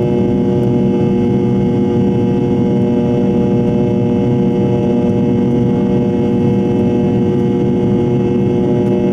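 Fokker 70's rear-mounted Rolls-Royce Tay turbofan running in flight, heard inside the cabin right beside the engine: a loud, steady drone with a hum of several steady tones from the fan.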